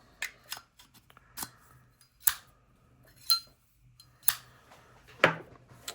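Seven short metallic clicks and clinks from Zippo lighters being handled, spaced about a second apart, some with a brief ring.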